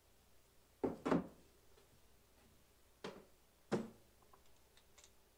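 Four short knocks and clanks, two close together about a second in and two more between three and four seconds in: a wrench and battery cables being handled at the terminals of a golf cart's 12-volt batteries.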